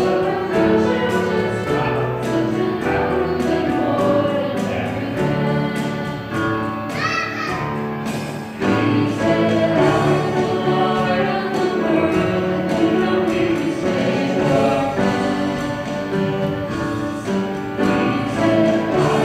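A small church praise band playing: piano, violin and electric bass with a steady beat, and voices singing over it. A note slides upward about seven seconds in.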